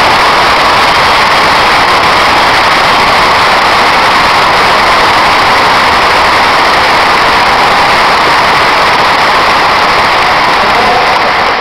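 Large football stadium crowd applauding and cheering, a steady loud roar that eases slightly near the end.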